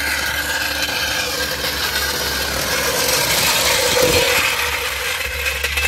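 Steel trolley floor jack rolled on its casters over rough concrete, a steady rasping scrape.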